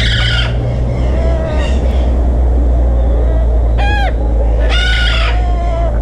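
Red-fronted macaws calling: loud calls at the start, then a short one about four seconds in and a longer one about five seconds in, with fainter lower calls between, over a steady low rumble.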